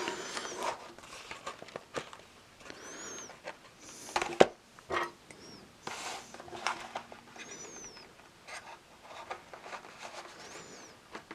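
Hands working cardboard model-kit packaging with a knife: rustling, scraping and scattered taps, with a sharp knock about four seconds in and a few short high squeaks.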